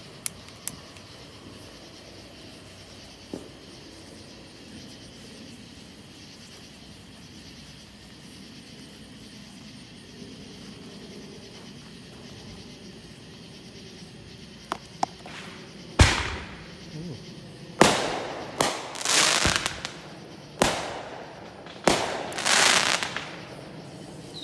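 A run of about seven fireworks bangs in quick succession, starting about two-thirds of the way in, each trailing off in an echo, with two of them drawn out for most of a second.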